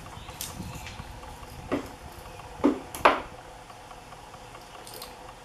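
Copper magnet-wire windings being pried and torn out of a refrigerator compressor's motor stator clamped in a vise. A few sharp snaps and scrapes of wire and tool against the laminated steel core, the loudest about three seconds in.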